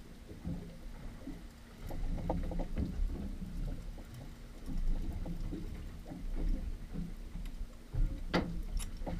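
Water slapping and lapping against the hull of a small fishing boat under a steady low rumble and faint hum, with scattered small knocks and clicks on board. Two sharper, louder knocks come near the end.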